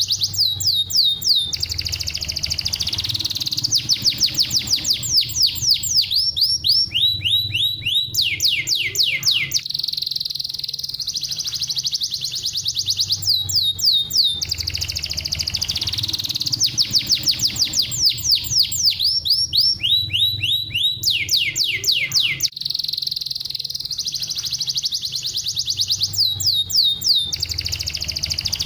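Domestic canary singing a long, fast song of rapid trills, made of trains of quick downward-sweeping notes alternating with steadier rolling passages. The same song sequence comes round again about every 13 seconds, over a faint low hum.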